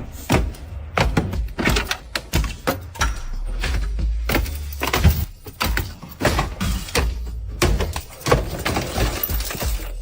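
A rapid, irregular series of knocks and clanks over a steady low hum.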